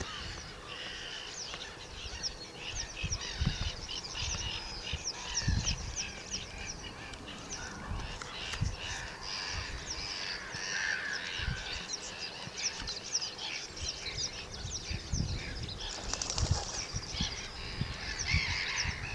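Dense chorus of many birds calling at once, a continuous stream of quick high-pitched chips and chatter, with occasional low rumbles underneath.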